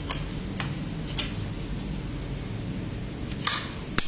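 Sections of a backdrop stand's crossbar being handled and pushed together: a few light clicks as the tubes meet, a brief rustle about three and a half seconds in, and a sharper click at the end.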